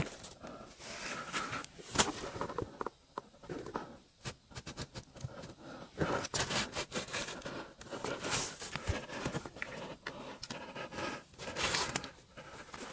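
Rustling and scraping as a gloved hand shifts bedding, cloth and a framed picture on a floor, in short irregular bursts with a sharp knock about two seconds in.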